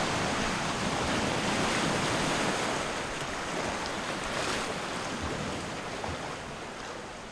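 Small waves breaking and washing over a sandy, pebbly shoreline right at the microphone, a steady wash of surf. It fades out gradually over the second half.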